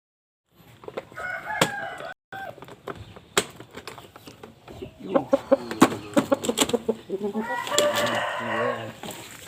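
Shamo rooster calling: a short call about a second and a half in, then one long crow of about a second and a half near the end. In between are clucks and a quick run of sharp knocks.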